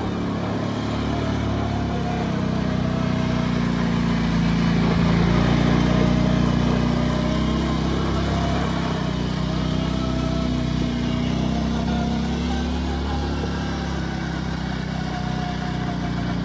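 Kawasaki Brute Force 650 ATV's twin-cylinder engine running under varying throttle as the quad is ridden in tight circles on loose dirt. Its pitch rises and eases a little, and it swells louder around the middle.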